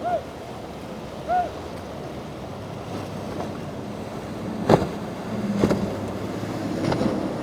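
Wind on the microphone over choppy water. Three short calls that rise then fall in pitch come in the first second and a half, and a few sharp knocks come in the second half.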